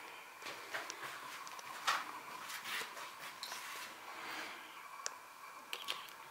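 Cats pawing and biting at a thin trickle of tap water in a ceramic bathroom basin: faint irregular taps, scrapes and small splashes, the loudest about two seconds in, over a faint steady hum.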